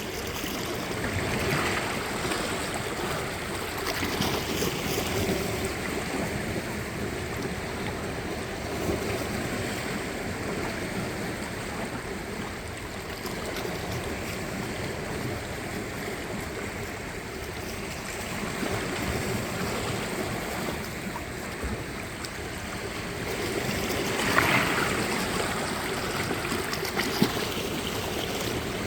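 Sea waves washing and lapping at the shore, a steady rush of water with a few louder swells, the strongest about twenty-four seconds in.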